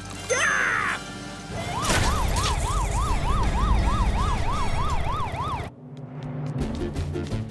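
An emergency-vehicle siren sound effect wailing rapidly up and down, about two and a half sweeps a second, over a low rumble, then cutting off abruptly. A short falling swoosh comes just before it.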